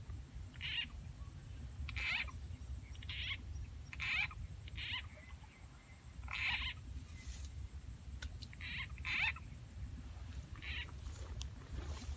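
Field frogs croaking: about ten short calls at irregular intervals, over a steady high-pitched whine.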